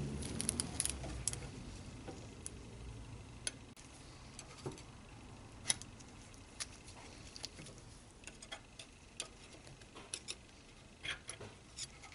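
Light, irregular metallic clicks and taps of a tool working the upper threaded ring out of a BMW R75/7 fork tube. There is a quick cluster of clicks at first, then single clicks a second or more apart.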